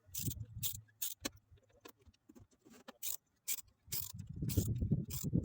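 Irregular sharp clicks and light rattles, like small parts being handled, with a low rumble at the start and a louder spell of it over the last second and a half.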